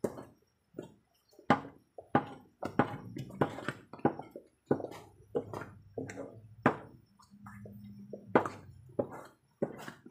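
A cooking utensil stirring thick ube halaya (mashed purple yam) in a pan, knocking and scraping against the pan in irregular strokes about two to three a second, as the mixture is cooked down to firm up.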